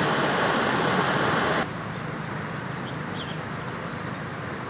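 Water pouring over a small concrete weir, a loud steady rush. About one and a half seconds in it cuts abruptly to the quieter steady flow of a shallow creek.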